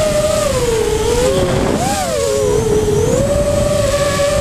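Electric motors and propellers of a 250-size FPV racing quadcopter whining in flight, several close tones together, the pitch sagging a little after a second in, rising briefly around two seconds and settling back up near three seconds as the throttle changes. A rushing noise of air runs underneath.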